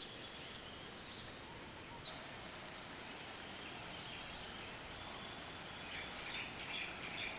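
Steady hiss of running water from a garden stream and waterfalls, with a few short, high bird chirps about one, two, four and six seconds in.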